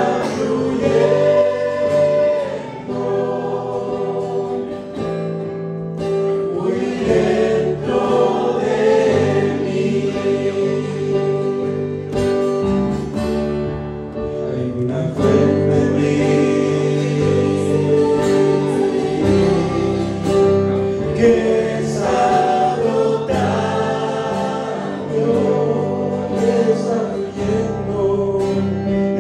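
A choir singing a Spanish-language Christian worship song, with instrumental accompaniment.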